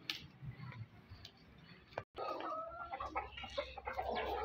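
Chickens clucking, louder and busier in the second half after a brief cut-out about two seconds in.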